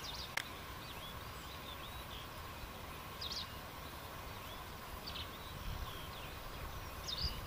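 Small birds calling and chirping repeatedly over a faint, steady outdoor background, with one sharp click about half a second in.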